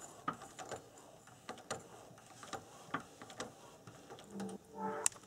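Light, irregular clicks and taps of small metal parts as a scale-model brake disc and caliper are handled and fitted on the front suspension upright. Near the end a pulsing pitched tone in a steady rhythm comes in.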